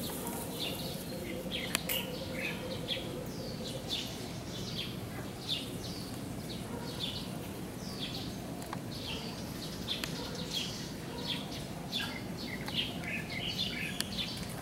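Small birds chirping: many short, falling notes, about two a second, over steady background noise.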